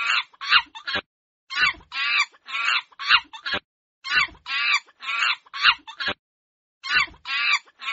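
Quick clucking animal calls in bursts of under a second each, repeating in a regular pattern with clean gaps of silence between them.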